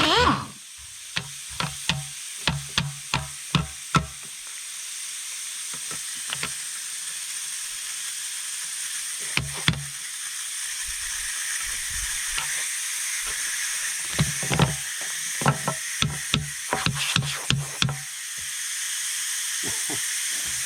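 Air hissing steadily out of a Gaz66 split-rim tyre through its removed central-tyre-inflation valve. Several clusters of sharp knocks come from the rim nuts being undone: early on, around ten seconds in, and again for a few seconds near the end.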